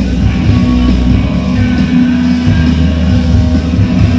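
Rock band playing live through a loud PA in a large hall, heard from within the crowd: heavy bass and drums under sustained electric guitar chords, with no singing.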